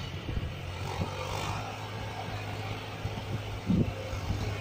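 Mahindra tractor's diesel engine running steadily under load while it hauls a loaded trolley. A few dull low thumps come near the end.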